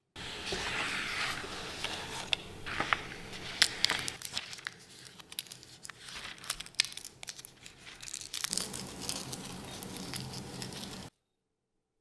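Dried eucalyptus leaves crackling and crinkling as fingers crumble them, full of sharp little crackles; the sound cuts off abruptly near the end.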